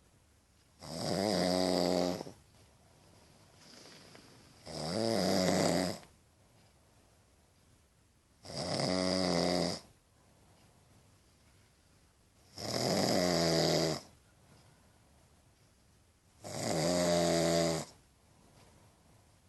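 Snoring: five rattling, pitched snores, each about a second and a half long, coming roughly every four seconds, with quiet breathing gaps between them.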